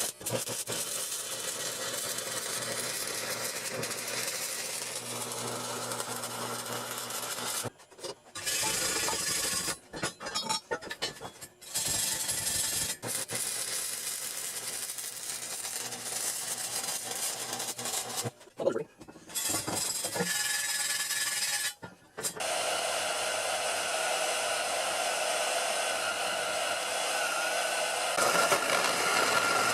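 DC stick-welding arc at about 100 amps, electrode negative, crackling and hissing steadily. The arc stops and restarts several times. After about 22 seconds the sound turns steadier and a thin whine comes in near the end.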